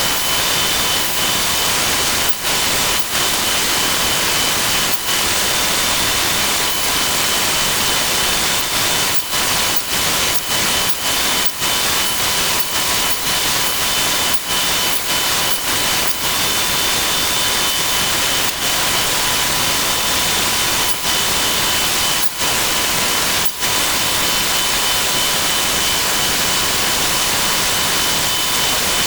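Woodworking power-tool noise sped up about twelve times: a loud, steady hiss with a high, steady whine, broken by many brief dropouts.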